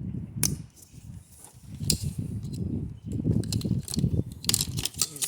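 Wiring harness being handled in an engine bay: plastic connectors and wire loom click and rattle, with low rubbing and handling noise. There is a sharp click about half a second in and another about two seconds in, then a quick run of clicks and rattles near the end.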